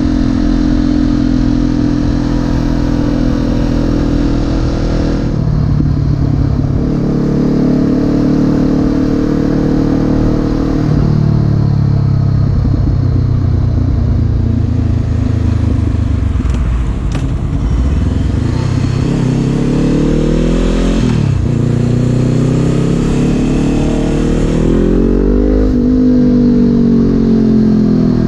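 Honda CB500F parallel-twin engine and exhaust under way. The engine note holds steady, drops at gear changes, then climbs twice under acceleration with a quick shift between the two climbs, and eases off near the end.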